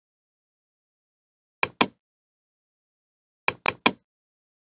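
Computer mouse button clicks: a quick double click a little over one and a half seconds in, then three quick clicks near the end.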